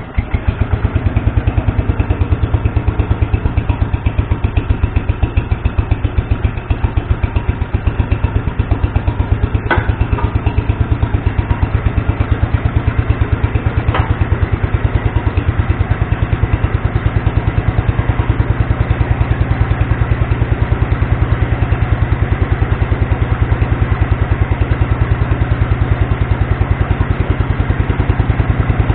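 Kohler K241 10 hp single-cylinder engine running steadily with even firing pulses, air cleaner off, freshly fitted with a new head gasket that is not leaking. Two faint clicks sound partway through.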